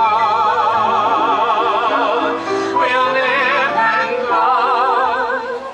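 A man and a woman singing a show-tune duet, holding long notes with a wide vibrato over an instrumental accompaniment. A new phrase comes in halfway through, then a second long note that ends just before the close.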